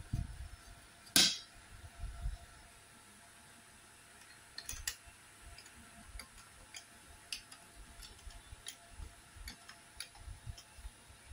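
Parts of a metal rack being handled and assembled: low knocks and one sharp clack about a second in, then scattered light metallic ticks and clicks as a screwdriver turns a bolt into the leg frame.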